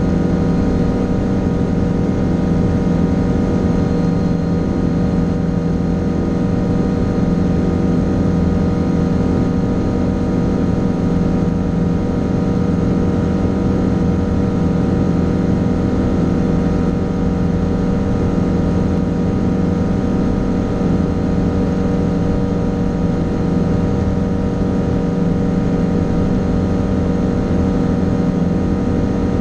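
Fly Synthesis Storch S ultralight's engine and propeller droning steadily at constant power in level flight, heard from inside the cockpit. The pitch holds steady throughout.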